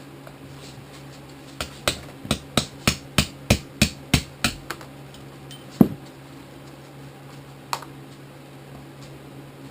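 A hammer tapping a punch to drive a pin out of a Toro Powershift snowblower transmission. There is a quick run of about eleven even blows, roughly three a second, then one harder blow and a last lighter one, over a steady low hum.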